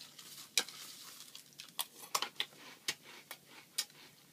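Eating Fruity Pebbles cereal with milk: a spoon in the bowl and crunchy chewing, a string of short, irregular crunches and clicks, several a second.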